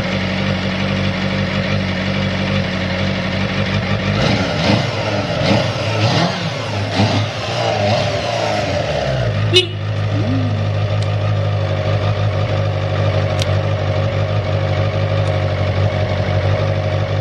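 Suzuki GSX-R400 inline-four motorcycle engine idling steadily, revved up and down several times in the middle before settling back to idle, with one sharp click about halfway through. The idle is even, with no odd noises.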